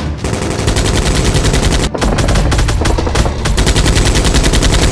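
Rapid automatic gunfire, a machine-gun firing sound effect with shots in very quick succession. It breaks off briefly about two seconds in, then carries on.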